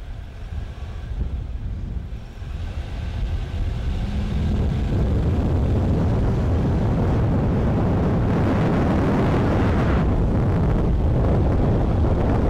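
Wind rushing over the microphone, a low rumble that builds up over the first five seconds and then holds steady.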